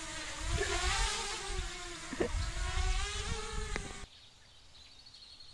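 Small motor vehicle engine running with a buzzing whine that rises and falls in pitch as engine speed changes, with wind rumbling on the microphone and a few knocks. It cuts off abruptly about four seconds in.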